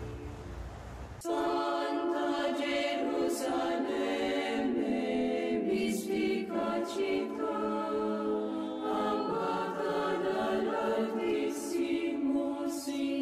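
Choir singing slow, sustained chords, starting abruptly about a second in after a low rumble.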